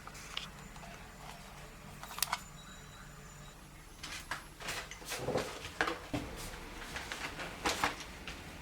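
Hands handling an RC car and its packaging: irregular clicks and light knocks, with a single click about two seconds in and more frequent ones from about halfway through.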